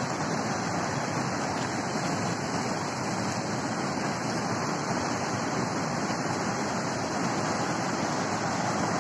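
Steady rushing of a swollen, fast-flowing river running high after heavy rain.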